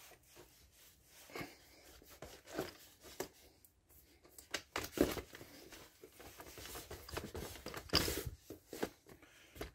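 Handling noise from a phone camera being moved and repositioned: irregular rustling and scraping with scattered knocks, the loudest about five and eight seconds in.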